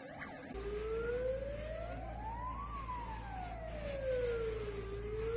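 Emergency vehicle siren on a slow wail: the tone rises for about two seconds, falls for about two, then starts rising again, over a steady low rumble. A faster warbling siren is heard briefly and cuts off about half a second in.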